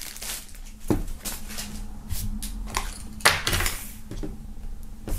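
Handling noise on a wooden tabletop: a handful of light knocks and rustles as packaged items are moved and set down, the two loudest knocks about a second in and just after three seconds.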